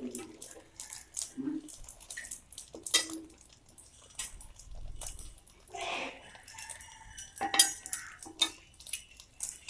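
Two steel flat spatulas scraping and clicking against a flat tawa griddle as they lift and fold the omelette edges over the bread slices. The clicks come irregularly, the sharpest about three seconds in and again past the seven-second mark.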